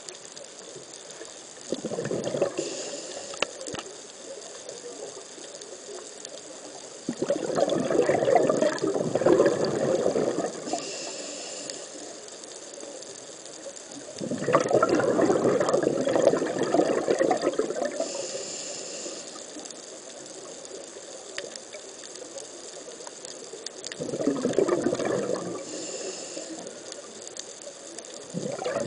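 Scuba diver breathing through a regulator, heard underwater. Four gurgling rushes of exhaled bubbles come several seconds apart, and each is followed by a short hiss of the inhale through the regulator.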